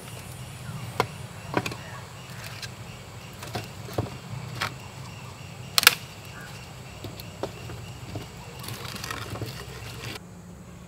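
Irregular sharp pops and knocks from firewood in a wood-fired brick oven as the fire is tended. The loudest knock comes about six seconds in.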